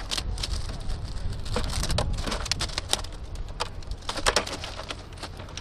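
A freshly caught sheepshead thrashing head-down in a plastic bag inside a bucket: a rapid, irregular patter of crackles and slaps as it is pushed in.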